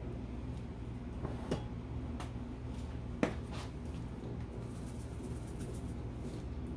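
Ground black pepper being shaken from a shaker over a pot of pasta: a quick run of light rattling taps for about two seconds near the end. Before it come a few scattered clicks and knocks, the loudest just after three seconds in, over a steady low hum.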